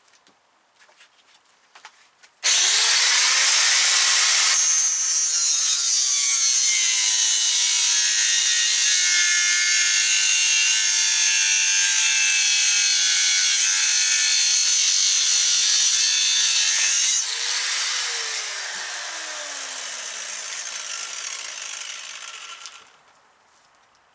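Power tool spinning a diamond blade with its cutting segments cut off, starting suddenly and running loud and steady while it cuts through the lead sheath of greasy copper cable. After about fifteen seconds it is switched off and winds down with a falling whine over several seconds.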